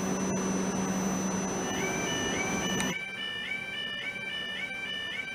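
A steady electric hum from class 458 electric multiple units standing at the platform. About three seconds in it cuts to a level crossing's audible warning alarm: a rapidly repeating electronic warble of rising then held tones, the alarm that sounds as the crossing prepares to close to road traffic.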